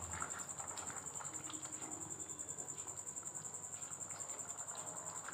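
Faint scraping and light knocks of a flat spatula stirring a thick vegetable curry in a pan, under a steady high-pitched pulsing trill.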